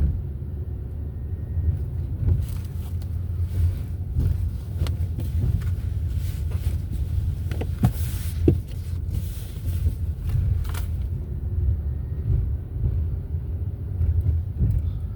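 Steady low rumble of a car driving, heard from inside the cabin, with a few brief clicks and knocks in the middle.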